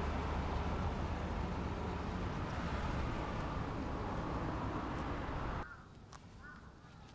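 Car engine running with street noise, the low engine rumble slowly fading as the car pulls away. It cuts off abruptly about five and a half seconds in to a much quieter outdoor background with a few faint high chirps.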